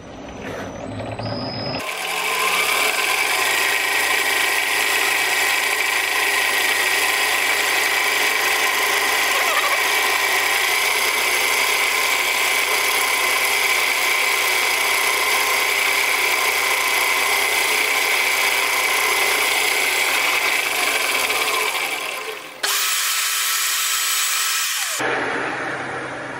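Home-built gear-driven vertical milling head running and cutting a scrap aluminium block with a dull end mill: a loud, steady machining noise with a high whine, sped up fourfold. The sound starts abruptly about two seconds in and changes suddenly a couple of times near the end where the footage is cut.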